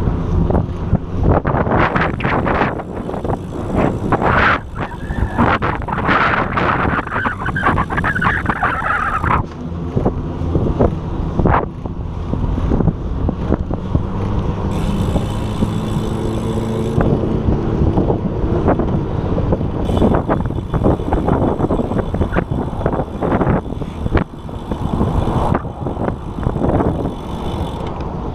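Strong wind buffeting an action camera's microphone on a moving bicycle: a continuous low rumble with irregular gusty surges.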